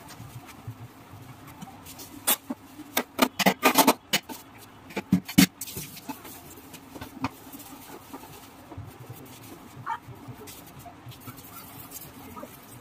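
A run of sharp knocks and clattering about two to five and a half seconds in, from a hand working at a stainless steel two-burner gas stove, then a few lighter clicks over low background.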